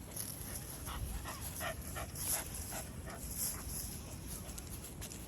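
Shiba Inu giving a quick run of short whimpering yips, about seven in two seconds, then stopping.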